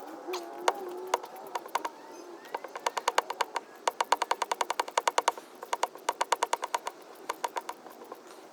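Hand socket ratchet clicking in quick, even runs of about ten clicks a second, with a short break in the middle, as a bolt is run in on a motorcycle engine's oil filter cover. A few single clicks come first.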